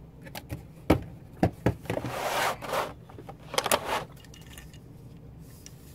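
Thin clear plastic packaging tray crinkling and clicking as the plastic candles are handled and lifted out of it: a few sharp clicks and short stretches of crackling rustle.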